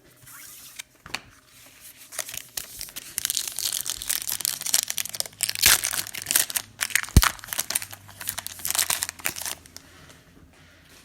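A football trading-card pack wrapper being torn open and crumpled: a dense, crackly crinkling that starts about two seconds in and dies away near the end, with a couple of sharp clicks in the middle.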